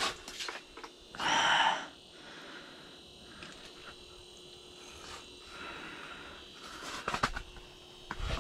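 Spinning reel being cranked while a walleye is fought up through the ice hole, with the drag giving line in short buzzing spurts. The loudest spurt comes about a second in, with quieter reeling and a few sharp clicks after it.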